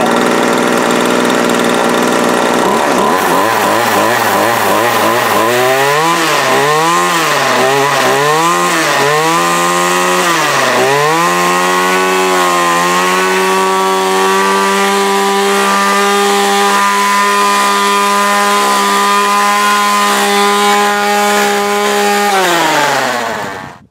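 Homelite two-stroke string trimmer engine running on petrol mixed with about 10% rapeseed oil in place of two-stroke oil. It idles at first, is revved up and down about once a second several times, then is held at high revs, and near the end the revs fall and it stops. The owner finds it runs freely and without trouble on this mix.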